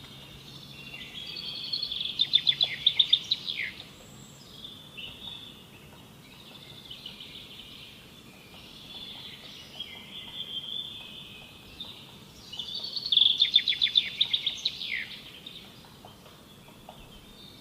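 A songbird singing. Two loud phrases of rapid trilled notes, each ending in a falling sweep, with softer warbling in between.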